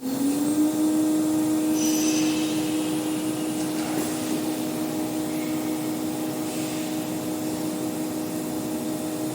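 Nesting CNC router machinery running with a steady whine.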